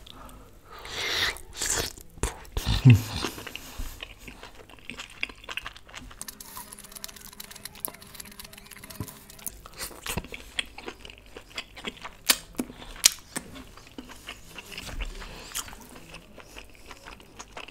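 Close-miked eating sounds: a person biting into and chewing a mouthful of curried meat, many small clicks of chewing, loudest in the first few seconds.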